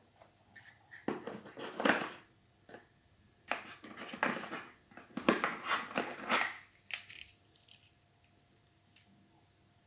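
Irregular crinkling and rustling handling noise in bursts for about six seconds, then quieter.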